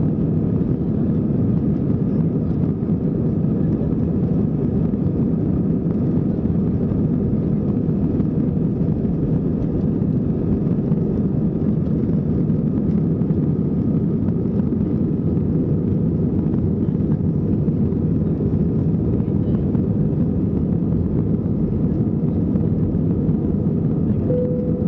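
Airbus A320 on its takeoff roll and climb-out, heard from inside the cabin: a steady, loud engine and airflow noise at takeoff power, deep and even. A short tone sounds near the end.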